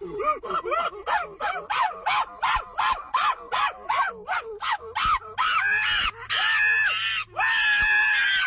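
An animal calling over and over: short cries that rise and fall in pitch, about three a second, turning after about five seconds into longer, higher, held cries.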